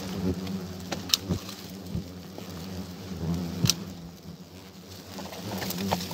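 Hornets buzzing steadily around their papery nest. A few sharp clicks and snaps cut in as a gloved hand works at the twigs close by.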